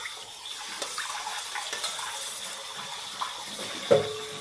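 Spiced pani water sloshing and gurgling as it is swirled in a stainless-steel bowl. About four seconds in comes a single sharp metallic clink with a brief ring.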